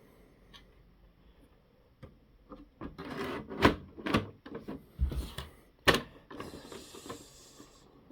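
Hands handling hard plastic parts and packaging: a string of sharp clacks and knocks, three of them loud, then a stretch of rustling near the end.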